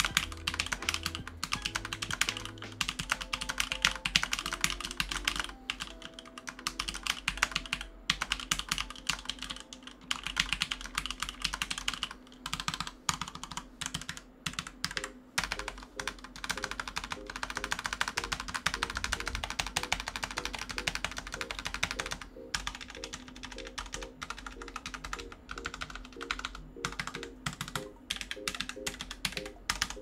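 Typing on a Pulsar Lunar Alloy mechanical keyboard with Pulsar's own box-style switches made with Outemu: a fast, steady run of key clicks with brief pauses. Background music plays under it.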